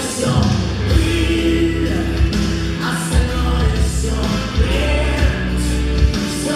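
Music: long held notes over a bass line and a drum beat, with a sung or choir-like sound.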